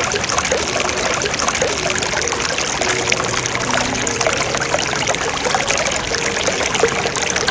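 Running water, a steady rushing with faint short low notes beneath it.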